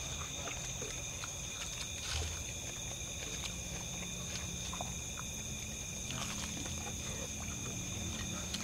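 People chewing and smacking their lips while eating with their hands, with a few soft clicks and smacks. Under it runs a steady high-pitched drone of night insects and a low hum.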